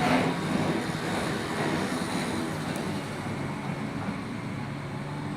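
Tokyu Setagaya Line tram moving off over the level crossing: one last wheel clack at the start, then its running noise fading into a steady street hum.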